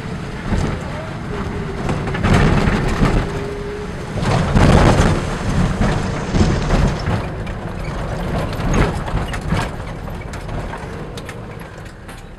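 Inside a moving car's cabin: a low rumble of the vehicle on the road, with many short knocks and rattles. The rumble swells louder about two seconds in and again around four to five seconds in, then eases off toward the end.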